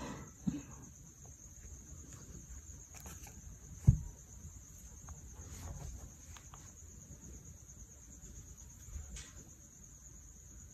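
Soft handling sounds of a phone fitted with a tempered-glass screen protector being pressed down and wiped with a cloth, with one dull thump about four seconds in and a couple of light clicks. A faint steady high trill runs underneath.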